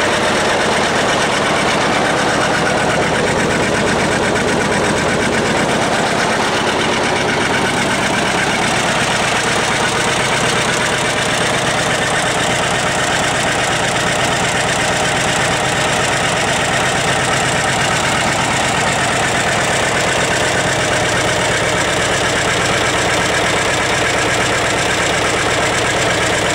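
Two-cylinder engine of a John Deere R tractor running steadily on its first start after a complete overhaul.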